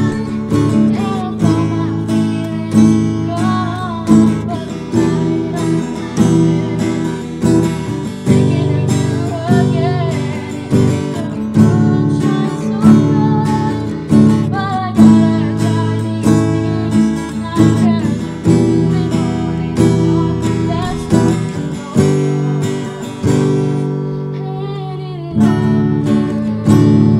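A girl singing a song while strumming chords on a guitar, the strums falling in a steady, even rhythm under her voice.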